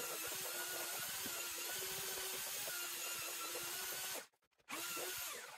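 Electric drill with a paddle mixer stirring a bucket of softened clay adhesive mortar, its motor running at a steady hum. It cuts out abruptly about four seconds in, runs again briefly and fades near the end.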